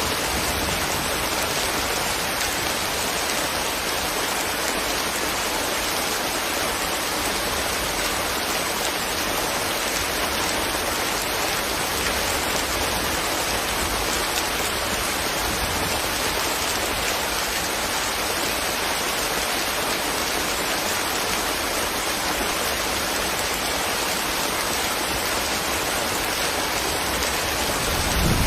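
Steady rain falling, an even hiss with no break. A low rumble of thunder starts to build at the very end.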